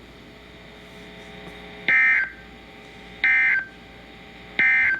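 Emergency Alert System end-of-message code: three short, harsh, screechy data bursts about 1.3 seconds apart, starting about two seconds in, over faint receiver hiss. This is the signal that closes a broadcast weather warning.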